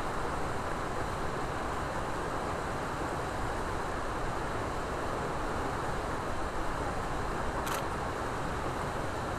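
Steady rushing ambient noise with a fluttering low rumble, and a single short click near the end.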